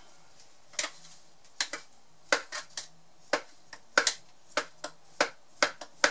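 Irregular sharp clicks and taps as fingers work butter and flour together in a small blender bowl, breaking up the lumps by hand, about two or three knocks a second.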